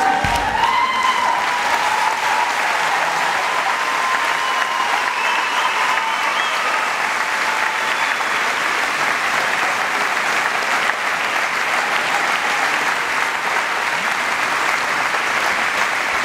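Large audience applauding steadily, a dense even clapping that holds through the whole stretch.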